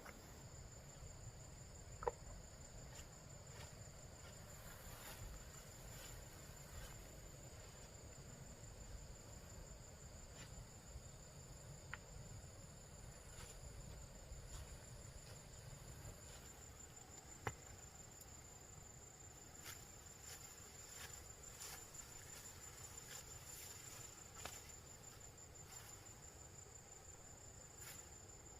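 Insects trilling in a steady high-pitched chorus, faint, with a few sharp clicks.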